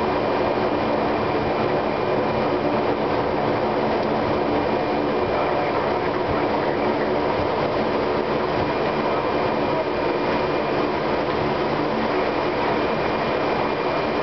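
Fokker 50's twin turboprop engines and propellers heard from the cockpit while taxiing: a steady drone with several steady hum tones running through it.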